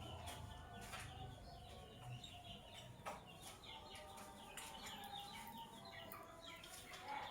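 Lovebirds chirping: a faint, rapid stream of short, high chirps, with a few sharp clicks mixed in.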